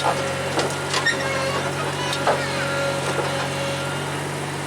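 Sterling Acterra dump truck's diesel engine running steadily, with a few short clicks over it.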